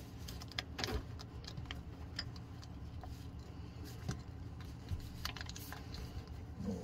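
Small, irregular clicks and light scrapes of a brass threaded fitting being turned by hand onto a brass drain valve.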